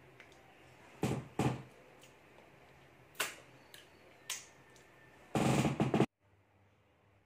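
Wet mouth sounds of someone licking food off their fingers after a meal: a few sharp smacks about a second in and again around three and four seconds in. Near the end comes a louder, noisier sound lasting under a second that cuts off abruptly.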